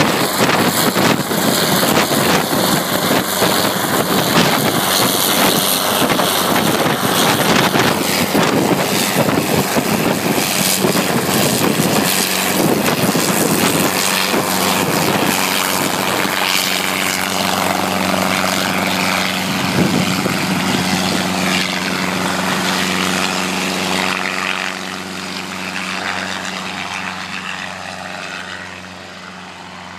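Hughes 269A piston-engined helicopter running close by, its main rotor beating rapidly over the engine's drone as it hovers and lifts off. The sound fades over the last several seconds as the helicopter flies away.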